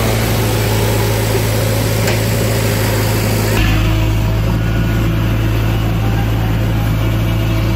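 JCB backhoe loader's diesel engine running close by, a steady deep drone; about three and a half seconds in, its low rumble gets heavier.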